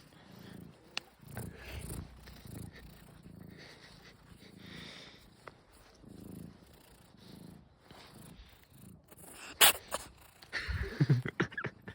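Domestic cat purring in slow, regular breaths, then a sharp, loud sneeze about nine and a half seconds in, followed by a quick cluster of further sneezing near the end.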